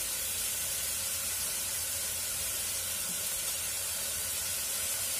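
Spice paste frying in oil in a pan, a steady sizzling hiss.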